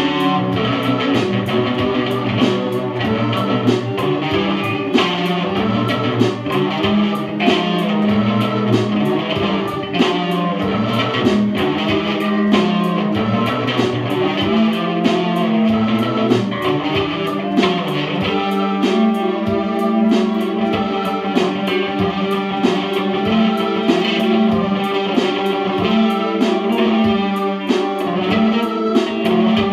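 An electric guitar played through a small practice amp together with a Casio electronic keyboard, a steady, unbroken band jam.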